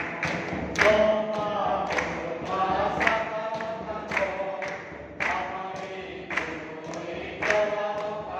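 A congregation singing a hymn together, with a drum struck in a steady beat about once a second.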